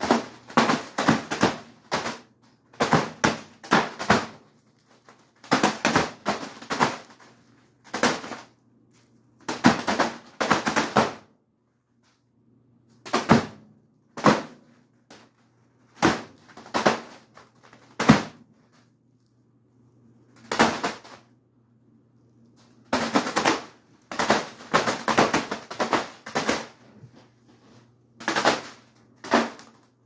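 Spinning ceiling fan blades repeatedly slapping a foil birthday balloon. The hits come in rapid clattering bursts, each up to a couple of seconds long, with pauses between, over the fan's low steady hum.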